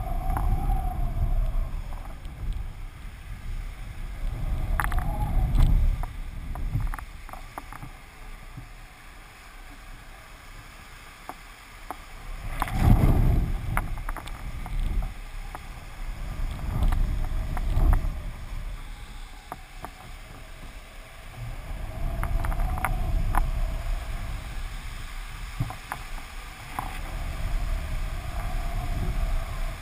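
Wind buffeting a camera mounted on a flying kitesurfing kite, rising and falling in gusts, with the strongest gust about 13 seconds in. A faint wavering whine comes and goes under the rumble.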